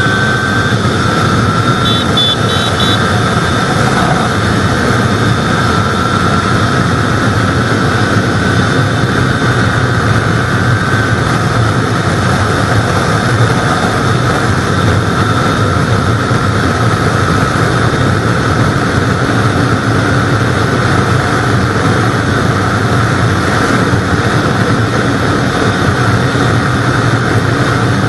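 Kawasaki Ninja 400 parallel-twin engine held at high revs at full throttle near top speed, its note rising only slowly, under loud, steady wind rush on the onboard microphone.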